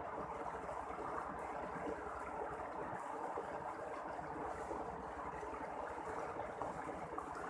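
Steady rushing of flowing river water, even throughout, with a faint low steady hum beneath it.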